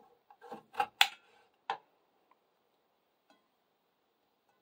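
Kitchen knife cutting a raw potato on a ceramic plate: four or so sharp knocks of the blade through the potato onto the plate in the first two seconds, the loudest about a second in, then a couple of faint ticks.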